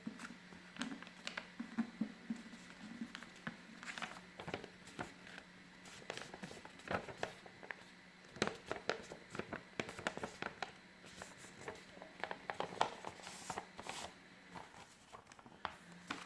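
A sheet of paper being folded and creased by hand: irregular soft rustles and short sharp creasing clicks.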